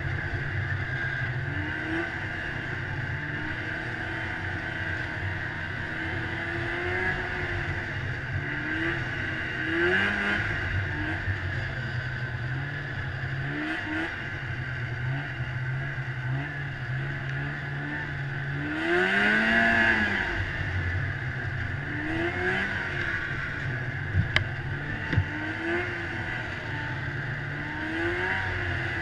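Snowmobile engine running on the move, its pitch rising and falling over and over as the throttle is worked, with one louder rev about two-thirds of the way through. Two or three brief knocks follow shortly after.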